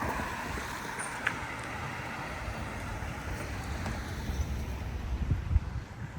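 Wind buffeting the microphone over a steady low outdoor rumble, with stronger gusts thumping near the end.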